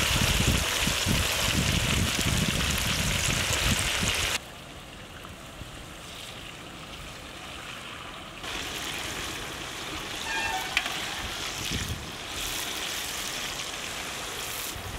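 Marinated chicken pieces sizzling as they deep-fry in hot oil in an iron karahi over a wood fire. The loud sizzle breaks off about four seconds in to a quieter hiss, and a steady frying sizzle returns about halfway through.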